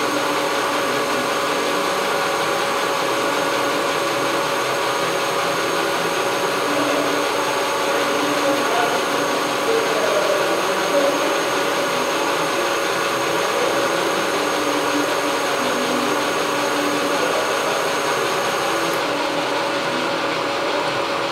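Whacheon WL460 centre lathe running under power during a test cut, a steady mechanical whir with several steady tones from the headstock and gearing. A faint high tone drops out near the end.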